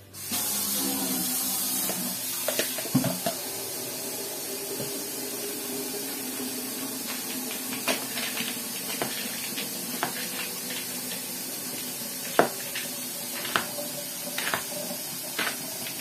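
A steady hiss like running water, with light clicks and knocks scattered through it as a spoon works salad in a plastic bowl.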